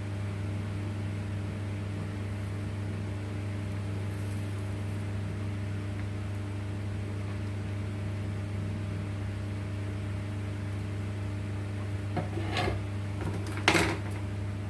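Steady electrical hum at about 100 Hz with overtones above it, typical of mains hum on a workbench. Near the end come a few light clicks and a brief louder scrape, like handling on the bench.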